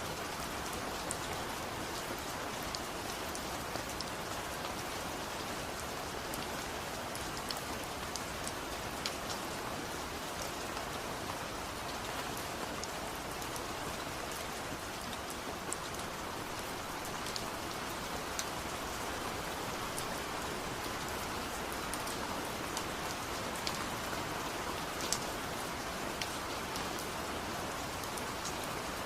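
Steady rain falling on surfaces, an even hiss with scattered individual drops ticking.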